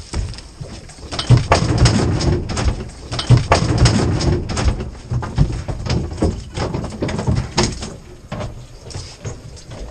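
Irregular knocks and thumps against a fibreglass boat's side and deck while a hooked fish is landed, with wind buffeting the microphone.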